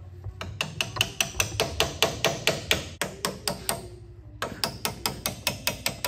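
A steel hammer rapidly strikes a punch, about five blows a second, metal ringing on metal, to drive roll pins out of a forklift mast. The blows pause briefly a little past the middle, then resume.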